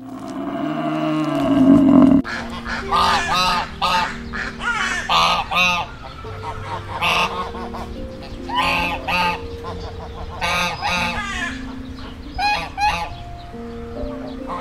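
An African buffalo gives a loud, low, drawn-out call for about the first two seconds. Then mallard ducks quack in short runs of a few harsh quacks, repeated every second or two, over background music with long held notes.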